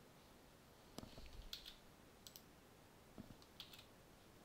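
Faint computer mouse clicks over quiet room tone: three quick click pairs, with a couple of dull low thuds about a second and three seconds in.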